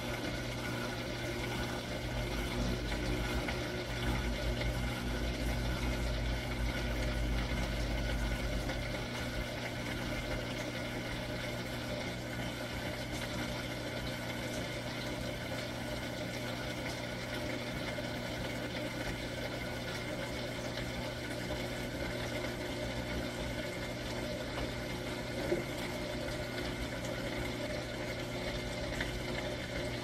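Electrolux LM13Q top-load washing machine draining: its drain pump hums steadily while water rushes and gurgles out of the tub. It is a little louder for the first several seconds, then settles.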